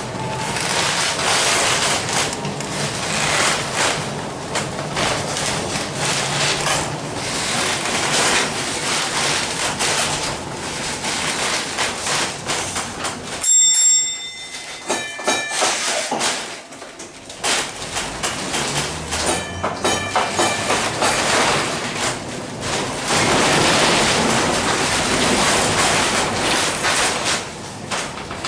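1906 John Stephenson-built streetcar heard from inside its wooden body while running along the track: a steady rumble and rattle of the car and its wheels on the rails. About halfway through comes a short ringing tone, then a few seconds of quieter running.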